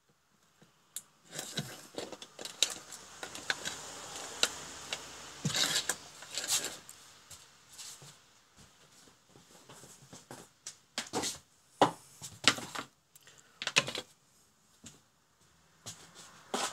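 Irregular clicks, taps and rustles of hands handling wires and a small plastic lever-type wire connector, with parts and cable set down on the workbench. The sharpest clicks fall in the second half.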